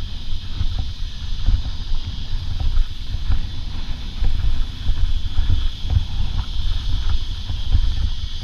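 Mountain bike ridden fast down rocky singletrack, heard from a helmet-mounted camera: wind buffeting the microphone with a steady low rumble, and the tyres and bike clattering over rock and roots in many short knocks.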